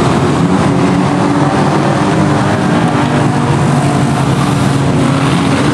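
Several pre-1970 banger cars' engines running and revving together, a loud continuous mix of engine notes that rise and fall slightly in pitch.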